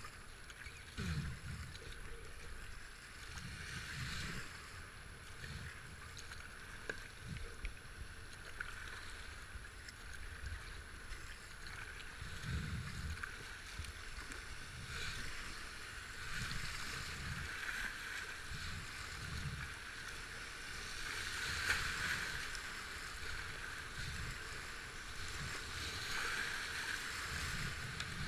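River rapids rushing around a whitewater kayak as it is paddled downstream, with irregular low thuds; the rush of water grows louder a little past two-thirds of the way through.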